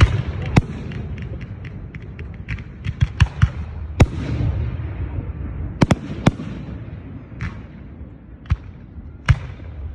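Fireworks display: aerial shells bursting with sharp reports over a low rumble, coming in quick volleys and then thinning to single bangs near the end.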